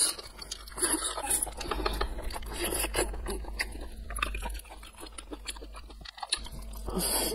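Close-miked chewing of cooked sea snail meat: wet mouth sounds with many small irregular clicks and smacks as the meat is bitten and chewed.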